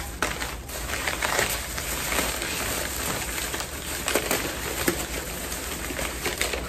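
Packaging rustling and crinkling as it is handled, with many small irregular crackles.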